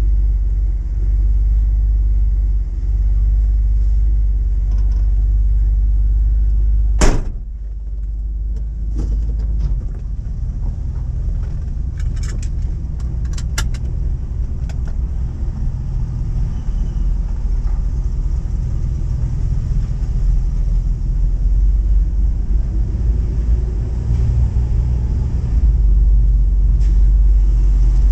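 1972 Chevrolet C20 pickup's engine running at idle shortly after a cold start, heard from inside the cab. About seven seconds in the cab door slams shut, followed by a few small clicks and knocks.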